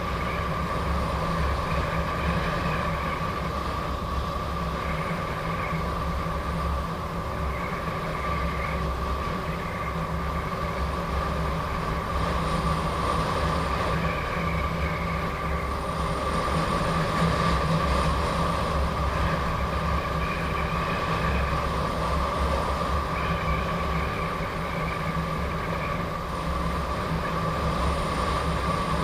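Gotway MSP electric unicycle riding at steady speed: a constant high whine from its hub motor sits over a low rumble of wind buffeting the microphone and tyre noise on the road.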